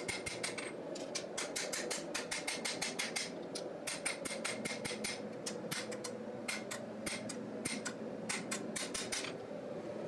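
Hand hammer striking a forged steel knife blade to straighten its spine, rapid blows about four a second, each with a short metallic ring. The blows stop near the end, leaving a steady hum underneath.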